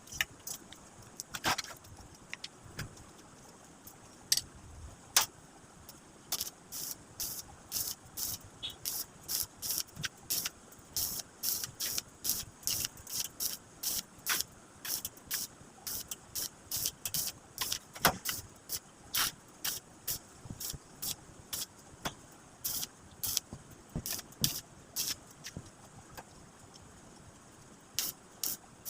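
Metalwork on stainless-steel sheet and frame: a long run of light, sharp metallic ticks, about two a second, with a few louder single ticks.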